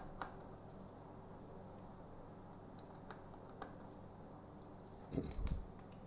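Faint scattered clicks and taps of a small screwdriver and fingers on a laptop keyboard while the small keyboard screws are undone, with a louder clatter of handling about five seconds in.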